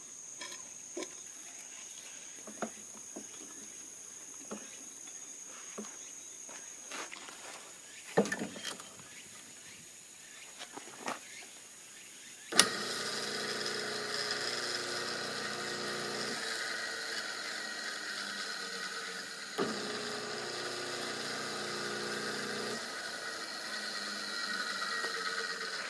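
Handling knocks and clicks, then an electric motor switches on with a sharp click about halfway through and runs steadily with a whine, with a single click partway through its run.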